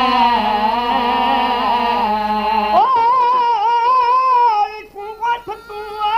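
A solo voice singing Saraiki Hussaini dohre, elegiac verse for Imam Hussain, holding a long wavering note over a low hum. About three seconds in, the hum stops and a new phrase begins with an upward slide. Near the end the singing breaks into short phrases with brief gaps between them.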